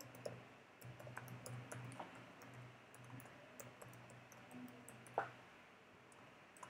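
Faint keystrokes on a computer keyboard as an email address is typed, scattered clicks with one louder click about five seconds in, over a faint low hum.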